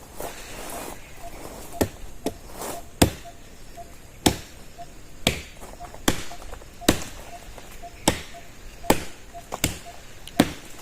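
A blade chopping into small trees and brush: about a dozen sharp strikes, roughly one a second.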